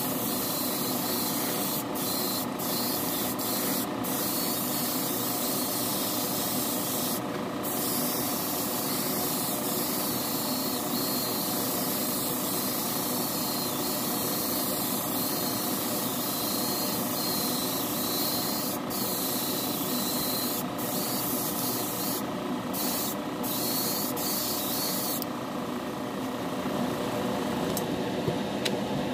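Steady hiss of clear coat being sprayed onto a plastic model car body, the second coat of clear, with several short breaks where the spray is released and a stop a few seconds before the end. A steady spray-booth fan hum runs underneath.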